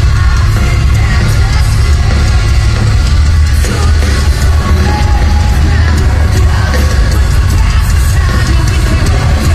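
Post-hardcore band playing live at full volume: distorted guitars, heavy bass and drums, with yelled and sung vocals over the top.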